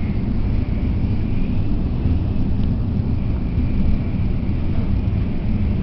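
Tokaido Shinkansen train running at speed, heard from inside the passenger car: a steady low rumble of wheels, track and air, with a faint high hum over it.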